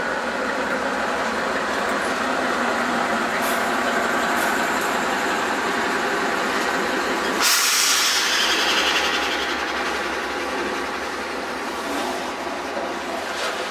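British Rail Class 58 diesel-electric locomotive running its Ruston-Paxman V12 engine with a steady low throb as it pulls away hauling container wagons. About halfway through a sudden louder rush of hissing noise sets in and fades over a couple of seconds, followed by the wagons rolling past.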